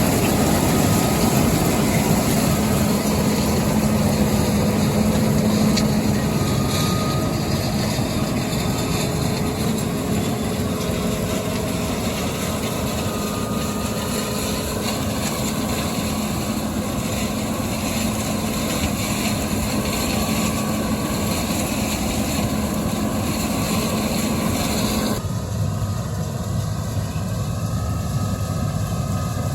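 John Deere 9400 combine running steadily while harvesting soybeans, a continuous machine drone with a steady hum. About 25 s in, the higher hiss and hum cut out abruptly, leaving the lower rumble.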